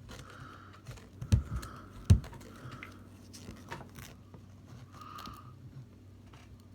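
Handling noise of velcro ties being worked onto a metal DSLR cage: scattered clicks and light rustling, with two sharp knocks about a second and a half and two seconds in.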